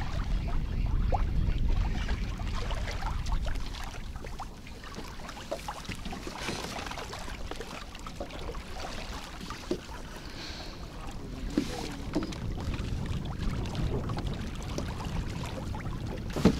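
Wind buffeting the microphone and water lapping against a small fishing boat, with scattered light knocks and clicks. The wind rumble is heaviest in the first few seconds, then eases.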